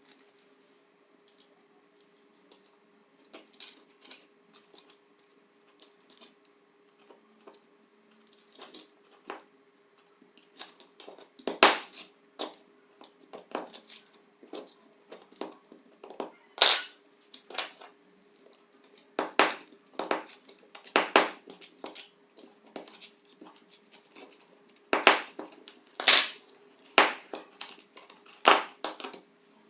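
Sharp metallic clicks and clacks from the oily hammer-and-anvil mechanism of a cordless impact wrench being turned and handled by hand in a metal tray, few at first, then louder and more frequent after about ten seconds. A faint steady hum runs underneath.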